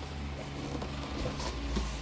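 A steady low hum, with a few faint light taps about the middle.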